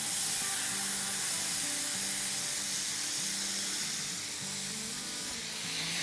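Marinated diced chicken sizzling steadily in a hot frying pan on medium-high heat.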